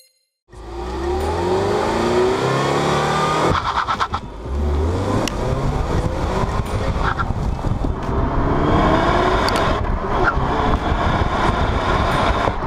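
Ford Mustang EcoBoost's 2.3-litre turbocharged four-cylinder engine accelerating hard with tyre and road noise. The revs climb, drop briefly about three and a half seconds in, then climb again and hold high.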